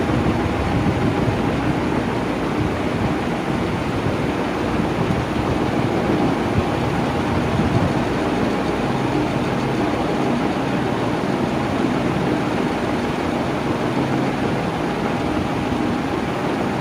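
Electric fan running steadily at constant speed: a smooth rush of moving air with a faint steady motor hum.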